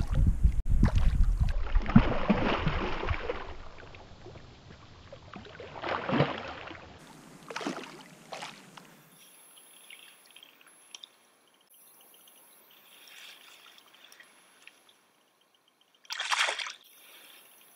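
A hooked sea trout thrashing and splashing at the surface of a small stream close to the bank. The splashing is loudest in the first few seconds, with another splash about six seconds in, then it quietens to faint water sounds, with one short splash near the end.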